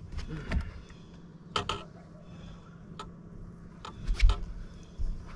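Scattered clicks and knocks, with one heavier thump about four seconds in: a big smallmouth bass being landed and handled in a fishing boat.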